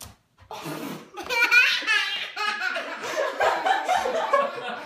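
Several people laughing, starting about half a second in and going on throughout, with high-pitched giggling about one and a half seconds in.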